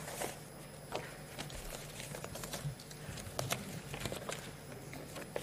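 Faint, irregular clicks and rustles of papers and ring-binder files being handled at a desk, about one or two a second, over a low room hum.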